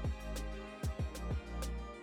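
Background music with a steady beat and a deep, pulsing bass.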